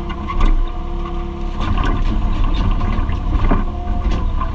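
Excavator's diesel engine running steadily, heard from inside the cab, while the bucket digs out a tree stump: knocks and cracking from the bucket against the stump and roots, one about half a second in and a cluster between about one and a half and four seconds in, when the machine's low rumble grows heavier.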